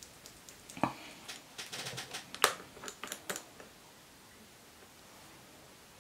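Scattered small clicks and taps of hard plastic being handled, from gel polish bottles and a plastic nail-tip swatch wheel: one about a second in, a quick cluster between about one and a half and three and a half seconds, then quiet.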